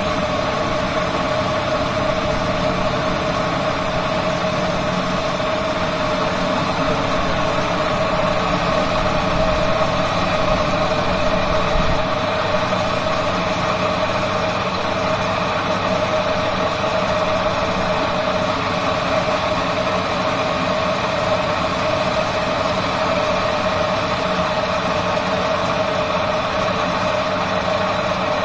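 Electric tomato-paste press motor running steadily, pressing tomatoes and peppers, with a constant mid-pitched hum.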